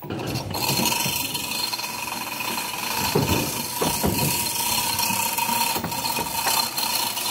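Manual chain hoist worked by hand, its chain rattling through the block and its ratchet clicking steadily as it lifts a speaker cabinet.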